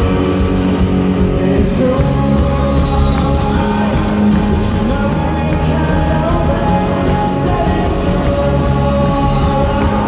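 A live rock band playing loud through a stadium sound system, with electric guitars, drums and singing, heard from within the crowd.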